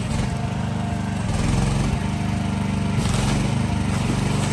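Small gas engine of a mini excavator running steadily as the arm works.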